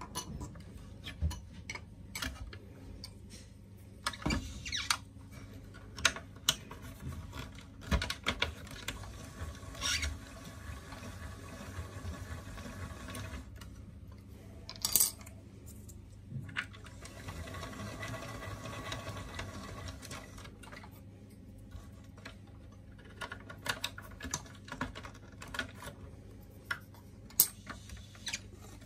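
Plastic and metal parts of a Chiba Peel S vegetable sheet slicer being handled and taken apart: scattered clicks and knocks as pieces are pulled off and set down on the countertop, with stretches of rubbing and sliding between them. The loudest knocks come about halfway through and near the end.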